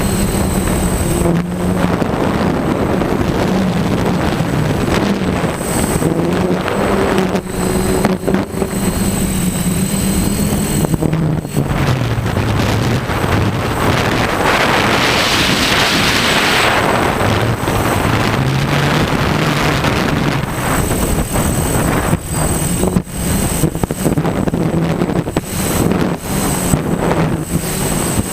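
Multirotor drone motors and propellers humming, the pitch drifting up and down as the throttle changes, with wind buffeting the microphone. A louder rush of hiss comes about halfway through.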